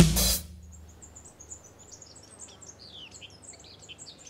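A drum kit's last hit and cymbal ring die away in the first half-second, then small birds chirp and twitter faintly in many short, high chirps.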